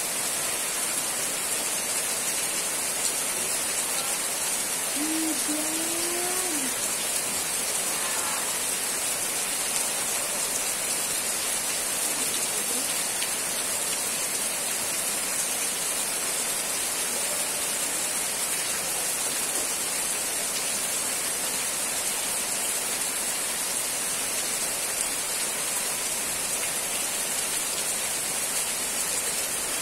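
Steady rain falling on leafy garden plants and into a muddy, puddled path: an even hiss. About five to seven seconds in, a faint low wavering sound rises and falls twice behind it.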